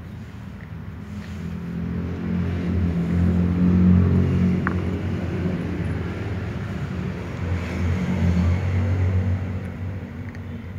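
Low rumbling motor noise that swells to its loudest about four seconds in, rises again near eight seconds, then fades, with one brief sharp tick in the middle.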